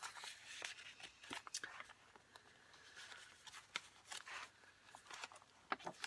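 Faint paper rustling and light taps as cards and pages of a handmade journal are handled and turned.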